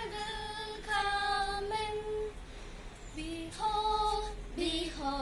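Two young girls singing an action song together, unaccompanied, on long held notes with a short pause midway.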